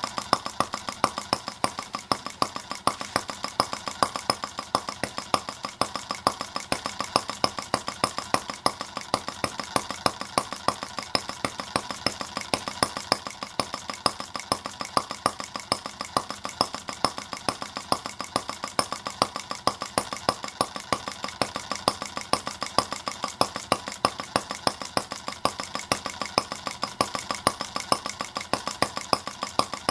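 Stirlingkit R18 miniature Benz engine, a single-cylinder model gasoline engine, running steadily: an even, rapid string of sharp beats, several a second, over a constant mechanical clatter.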